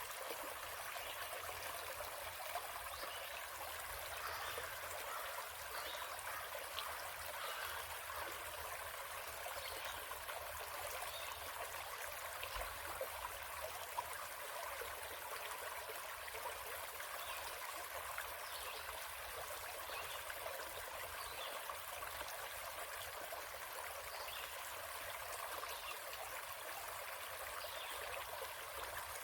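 A small forest stream trickling and gurgling steadily.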